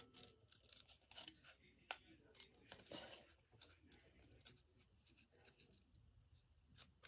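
Faint, quick snips of small scissors cutting paper, clustered in the first three seconds, then near silence.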